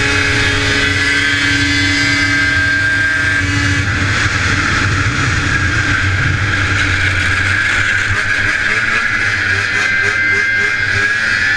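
Vintage John Deere 440 racing snowmobile's two-stroke engine running hard at high revs, loud and steady, its tone shifting about four seconds in.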